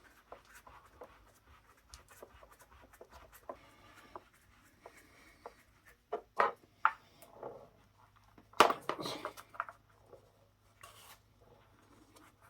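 Scattered clicks and knocks of hands and hardware on an indirect water heater as its leveling feet are fitted, with a few firmer knocks and one loud, ringing knock about two-thirds of the way through.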